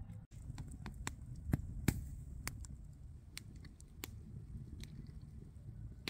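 Wood campfire crackling, with scattered sharp pops over a low steady rumble; the two loudest pops come about one and a half and two seconds in.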